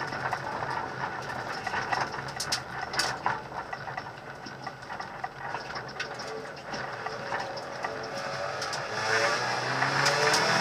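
Hyundai Accent rally car's engine heard from inside the stripped cabin, running at modest revs, with a few sharp clicks about two to three seconds in. Near the end the revs rise and the engine gets louder as the car accelerates.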